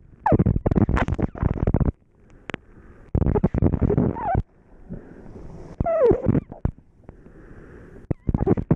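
Heavy wind buffeting on a small GoPro microphone held in the mouth, in loud rumbling gusts broken by short lulls, in about 25 knots of wind. A few short falling squeaky tones come through near the start and again about four and six seconds in.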